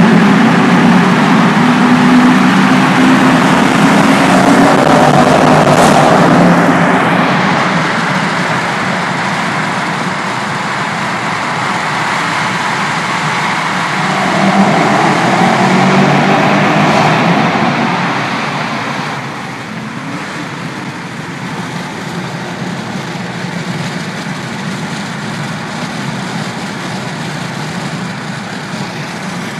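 Chrysler 300C SRT8 and Dodge Charger SRT V8 engines running loud in a tunnel. The sound is loudest in the first few seconds and swells again around the middle, then drops suddenly about two-thirds of the way through to a quieter, steady rumble.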